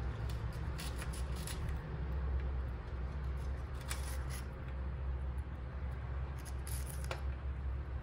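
Pacific parrotlet pecking and nibbling at vegetables and corn in a stainless-steel tray: a few small clusters of clicks, about a second in, around four seconds and near the end, over a steady low rumble.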